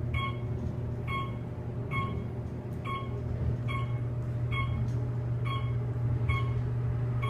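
Elevator car descending fast, giving a short electronic beep roughly every 0.85 s as it passes each floor, over a steady low hum of the moving car.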